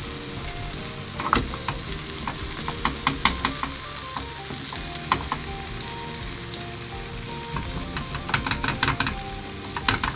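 Beaten egg sizzling in a square tamagoyaki pan, with a spatula scraping and tapping against the pan's edges in quick clicks, one cluster about a second in and another near the end.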